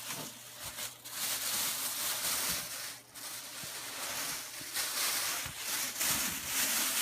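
Plastic bag wrapping rustling and crinkling as bundles of flexible plastic tubs are handled and unwrapped.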